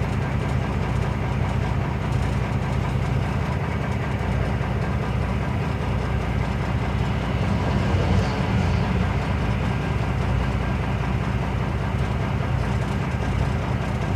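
Semi-truck engine running steadily, heard from inside the cab as a constant low drone.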